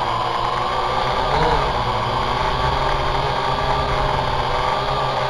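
Syma X8HG quadcopter in the air: its motors and propellers give a steady, loud whine, heard close up through the drone's own onboard camera. The pitch briefly dips and rises about one and a half seconds in as the motor speeds adjust.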